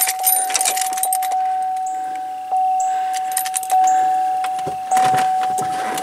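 A vehicle's dashboard warning chime dinging steadily on one pitch, re-struck about once a second, in the cab of a 2003 Chevy Suburban. Metallic jangling clicks come near the start and again near the end, as the column shift lever is handled.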